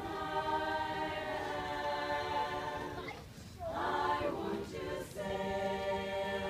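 A choir singing a cappella in sustained chords, breaking off briefly about three seconds in and then going on.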